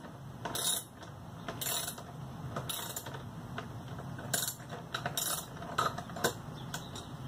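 Socket ratchet wrench clicking in short bursts about once a second as the handle is swung back and forth, loosening a bolt.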